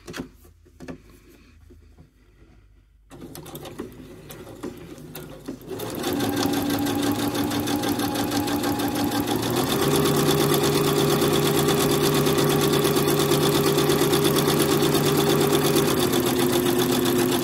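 Domestic electric sewing machine stitching a seam through two layers of fabric. The motor starts about six seconds in, runs steadily, speeds up a few seconds later and eases back a little near the end.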